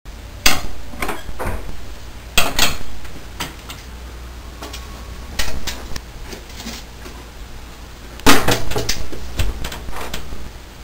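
A series of sharp knocks and clattering bangs with short pauses between them. The loudest come about half a second in, around two and a half seconds in, and in a quick cluster about eight seconds in.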